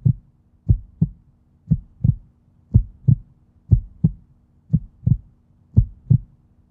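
Heartbeat sound effect: a steady low double thump, lub-dub, about once a second.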